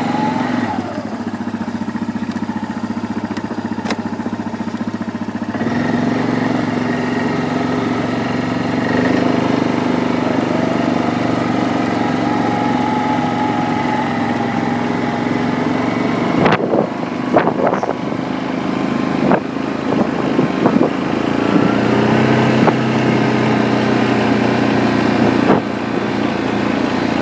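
Yamaha Grizzly 700 ATV's single-cylinder four-stroke engine running while the quad is ridden, its note stepping up and easing off with the throttle. Several sharp knocks and rattles come from about 16 to 21 seconds in.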